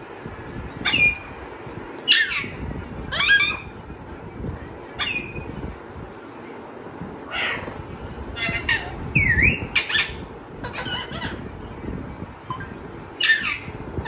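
A parrot squawking: about ten short, sharp calls that each drop steeply in pitch, with uneven gaps and a few bunched close together.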